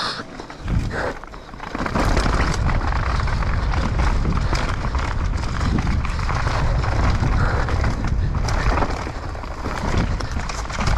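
Mountain bike descending a dirt trail at speed, heard from a camera riding on the bike or rider: wind rushing over the microphone, tyres on loose dirt, and the chain and frame rattling over bumps. The noise builds about two seconds in as the bike picks up speed.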